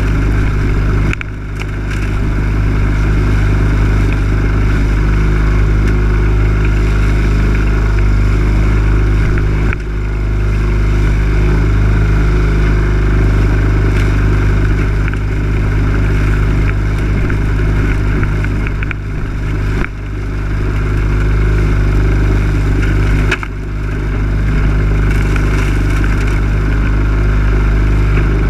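Lawn mower engine running steadily and loud, heard close up from a camera mounted on the mower, with a few brief dips in loudness.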